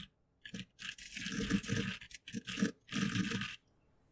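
Computer keyboard typing, a few separate keystrokes and then two long runs of rapid keystrokes that blur together into a scrubbing clatter.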